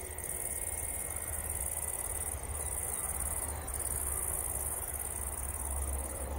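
Steady, high-pitched insect chirring from the grass, broken by a few brief pauses, over a steady low rumble.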